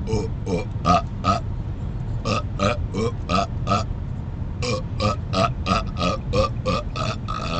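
Rapid-fire burps from a man, in three quick runs of short belches about three a second, the last run the longest. Underneath is the low rumble of the moving car.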